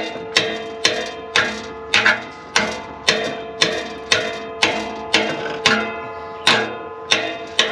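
Steady metal-on-metal hammering, about two blows a second, each strike leaving a clear ringing tone, as a rusted, seized exhaust bolt is knocked loose after being heated.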